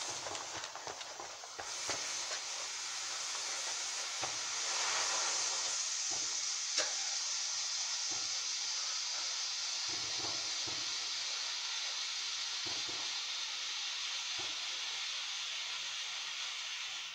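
Firework fountain spraying sparks with a steady hiss and a few small crackles. It builds up about two seconds in and cuts off suddenly near the end as it burns out.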